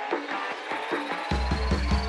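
Film soundtrack music: plucked notes, joined about a second and a half in by a deep bass and beat, with a thin high tone slowly rising.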